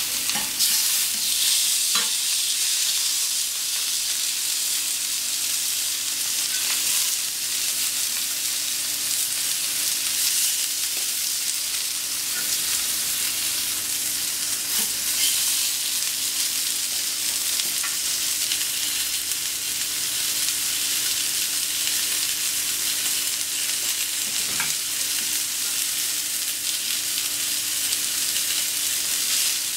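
Sesame-crusted tuna steaks sizzling on a hot plancha, a steady frying hiss. A few light taps and scrapes of metal spatulas on the steel plate come through as the steaks are turned.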